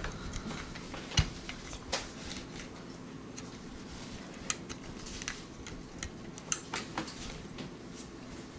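Scattered light clicks and taps of hands handling a small robot kit, plugging a cable connector into a port on the mBot's control board and fitting the Bluetooth module.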